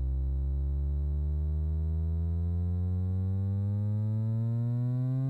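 Buzzy sawtooth-like tone from a software model of a relaxation oscillator, gliding steadily upward in pitch and rising faster toward the end as the modelled capacitor value is swept.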